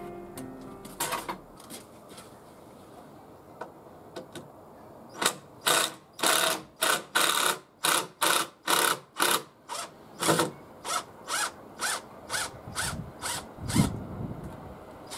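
A hand-held fastening tool working in a run of short, sharp mechanical rattling strokes, about two to three a second for several seconds, ending with a louder knock.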